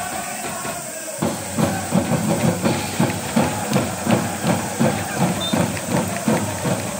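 Football supporters' crowd chanting in the stands. About a second in, a steady drum beat of about two strokes a second starts under the massed voices.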